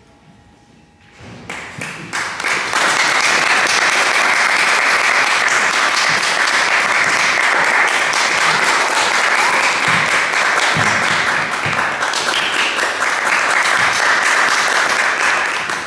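Audience applauding: the clapping starts about a second and a half in, builds quickly and holds steady, then dies away near the end.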